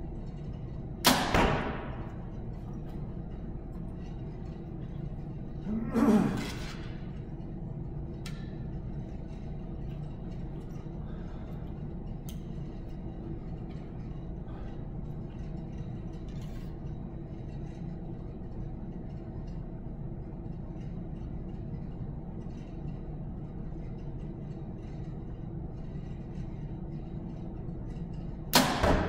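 A 2014 PSE Dominator compound bow shot twice, about a second in and again near the end: each a sharp crack of string and limbs with a short ring, the arrow striking the target close behind. A duller thump about six seconds in, over a steady low hum.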